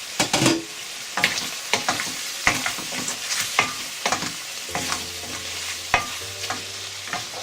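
Metal spatula scraping and stirring chicken pieces frying in sesame oil and ginger-garlic paste in a pan, over a steady sizzle; the strokes come every half second or so.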